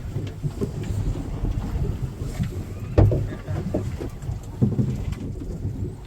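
Wind buffeting the microphone and a steady low rumble aboard a fishing boat at sea, with a sharp knock about three seconds in and a smaller one a second and a half later.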